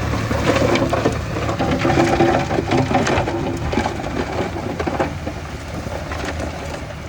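Heavy earthmoving machinery's diesel engine running steadily while soil and stones clatter and crunch as they tumble and are pushed. The clatter is busiest in the first five seconds and then eases off.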